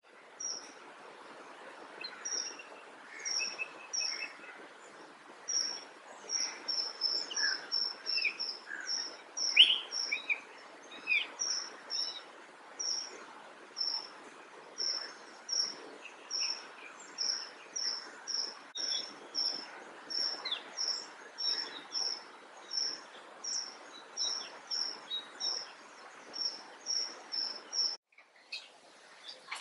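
Birds chirping: one bird repeats a short, high chirp about once or twice a second, with other bird calls now and then, over a steady background hiss. The sound cuts off suddenly near the end.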